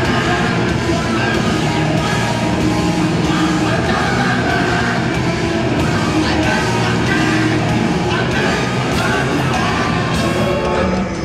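Hardcore punk band playing live: loud distorted guitars and pounding drums under a vocalist yelling into a microphone.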